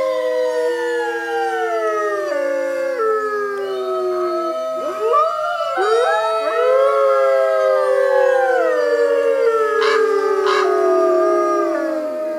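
North American gray wolf pack howling in chorus: several overlapping howls held and gliding slowly down in pitch, with two brief sharp calls about ten seconds in.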